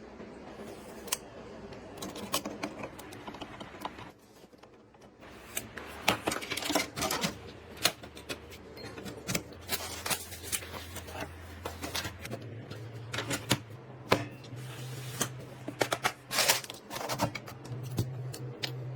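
Irregular small clicks, taps and light clatter of computer parts being handled and fitted during a PC build. Under them runs a faint low hum that shifts higher about twelve seconds in.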